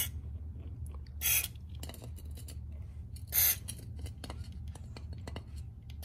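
WD-40 aerosol can spraying through its straw nozzle in short spritzes: three brief hisses, at the very start, about a second in and about three and a half seconds in, over a low steady background rumble.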